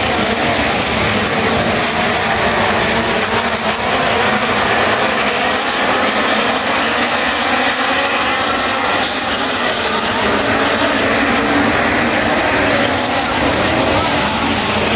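A pack of midget race cars racing on a dirt oval, their engines running hard in a continuous loud drone that wavers in pitch as the cars pass.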